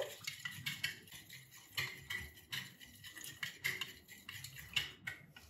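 Metal utensil whisking egg yolk and yogurt in a ceramic bowl: quick, irregular light clicks and scrapes of metal against the bowl.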